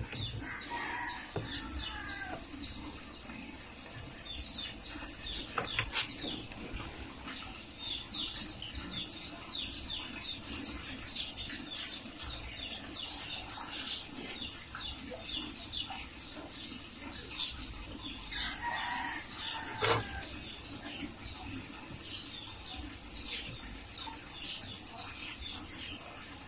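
Small birds chirping over and over in short quick calls, with domestic chickens clucking and calling in the background. Two sharp clicks, one about six seconds in and a louder one near twenty seconds.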